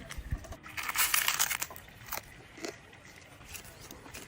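Crispy fried fish crunching: a loud crackling burst about a second in, then two short crunches.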